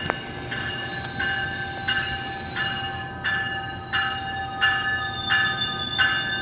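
GO Transit locomotive bell ringing steadily, about three strokes every two seconds, over the low rumble of a train in the station.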